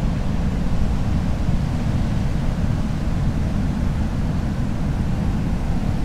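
Steady ocean surf with a low rumble of wind on the microphone.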